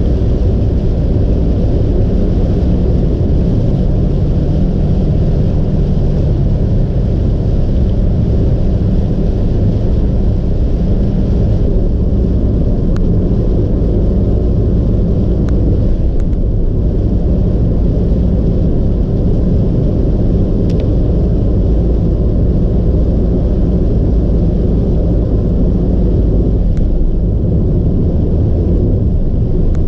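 Car cruising at expressway speed, heard from inside the cabin: a steady low rumble of road and engine noise, with a few faint clicks in the middle.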